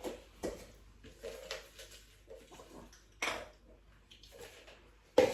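Scattered light clicks and knocks of things being handled on a kitchen table, with a louder knock about three seconds in and a sharp one near the end, over faint murmuring voices.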